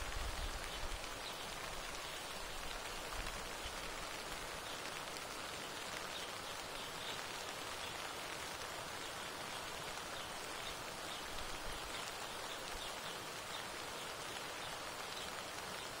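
Steady rain falling and pattering on surfaces, a continuous even hiss.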